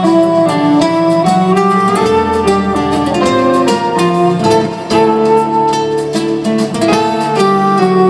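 Live band playing an instrumental passage of a song: acoustic guitar with held melody notes over it and a bass line.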